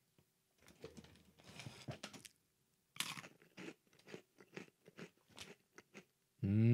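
A Snyder's of Hanover pretzel rod eaten close to the microphone: a crinkle of the bag, a sharp snapping bite about three seconds in, then crunchy chewing. Near the end a loud hummed voice comes in, its pitch rising and then falling.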